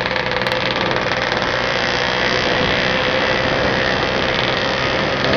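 Motorcycle engine running steadily while riding, with a dense rush of wind and road noise.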